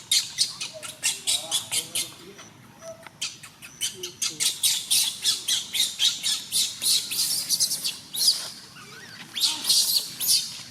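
Rapid series of short, shrill squeaks or chirps from an animal, several a second, coming in bursts, densest from about four to eight seconds in and again near the end.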